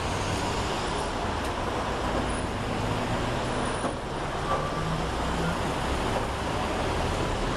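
Steady road traffic noise from a city street, a constant hiss and rumble of passing vehicles.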